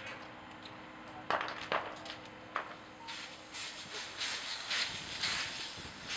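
A burning dumpster fire giving a few loud sharp cracks, then, from about three seconds in, a hiss that surges in repeated bursts as fire-hose water hits the flames and turns to steam.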